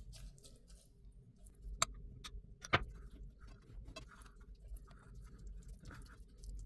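Soft wet smearing noises and light clicks as a yogurt and tomato-paste marinade is spread over a raw chicken, with two sharper ticks, one a little under two seconds in and one near three seconds in.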